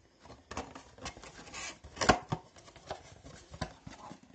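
Cardboard hobby box being handled: rubbing and scraping of cardboard with a series of small knocks, the loudest about two seconds in.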